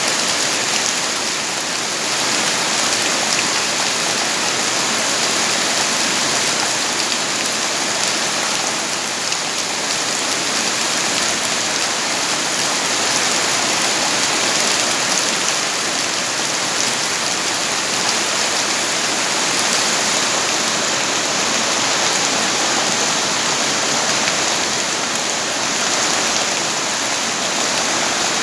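Steady rain falling, an even dense hiss of drops on surfaces with no breaks or changes in strength.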